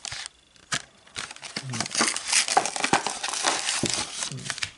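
Plastic blister packaging and cardboard of a Pokémon card tripack crinkling and rustling as it is pulled apart by hand and the boosters are taken out, with sharp crackles. It falls quiet briefly near the start, then rustles on continuously from about a second in.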